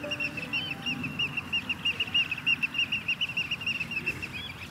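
Shorebirds calling in a fast, unbroken run of short high piping notes, about five or six a second, over a low steady rush.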